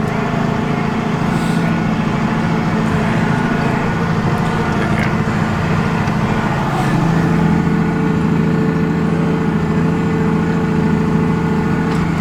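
8450 tractor's diesel engine running steadily while pulling a loaded grain cart; about seven seconds in, the engine note shifts and gets slightly louder.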